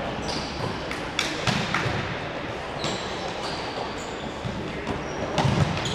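Futsal ball being kicked and passed on an indoor court: dull thuds echoing around a large sports hall, the loudest cluster near the end, with a few short high squeaks of shoes on the court over a steady hall din.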